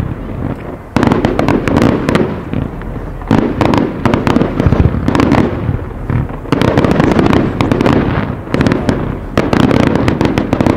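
Aerial fireworks display firing: a dense run of bangs and crackle, with fresh loud volleys breaking in every one to three seconds.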